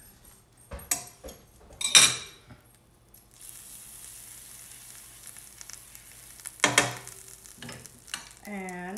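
Butter sizzling in a hot nonstick frying pan as it is brushed on with a silicone basting brush, a steady hiss from about three seconds in. A sharp clink of utensils against a plate comes about two seconds in, the loudest sound, and another near the end.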